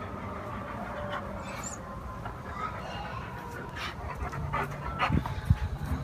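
Alaskan Malamute breathing heavily in short pants, growing louder in the last two seconds.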